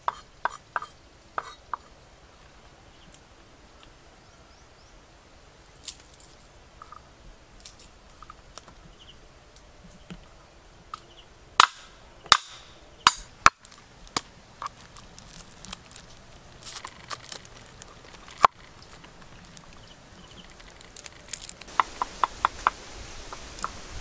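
Kitchen knife chopping on a wooden cutting board: irregular sharp knocks, some single and some in quick runs, including a run of four near the end.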